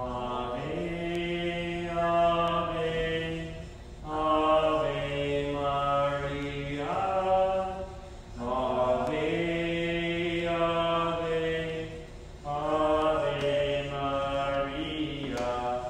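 A man singing a slow, unaccompanied Marian hymn, chant-like, in four long phrases of held notes with short breaths between them.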